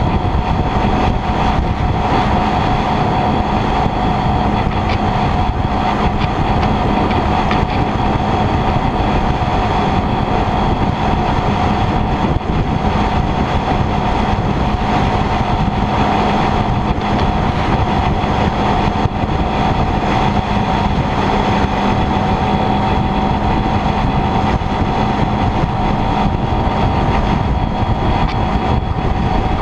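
Sport motorcycle riding at a steady cruising speed: the engine runs with a steady whine under a constant rush of wind and road noise.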